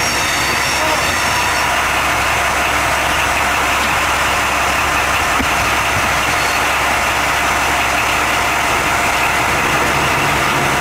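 A train running along the track, heard from inside the driver's cab: a steady mix of engine hum and running noise.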